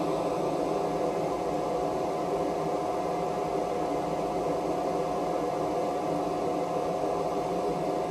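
A 4-inch inline booster duct fan runs steadily, pulling air in through a 3D-printed intake cone. It makes an even airy rush with a steady hum tone over it.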